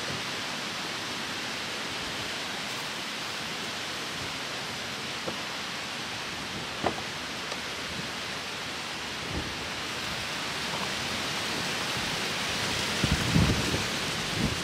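Wind blowing across the microphone: a steady hiss, with low rumbling gusts buffeting the mic near the end. A few faint clicks come through it around the middle.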